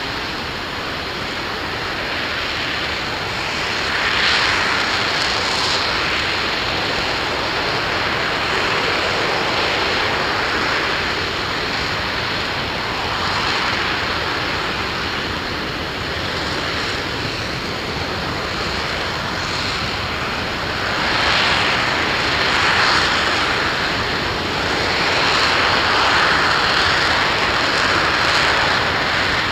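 Aerojet Rocketdyne RS-25 liquid-hydrogen/liquid-oxygen rocket engine running steadily during a static hot-fire test: a loud, continuous rushing noise that swells louder a few times.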